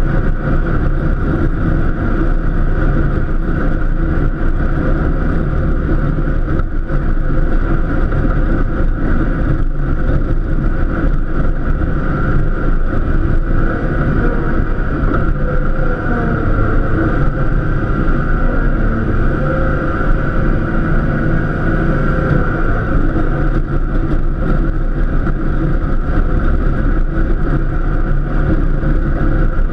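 Cub Cadet LTX 1050 KW lawn tractor engine running steadily while the tractor pushes snow, with slight shifts in pitch in the middle.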